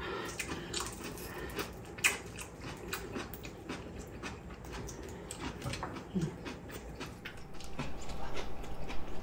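Crispy skin and flesh of a small grilled red tilefish crackling and tearing as it is pulled apart by hand, a run of many small sharp clicks, with faint mouth sounds from chewing.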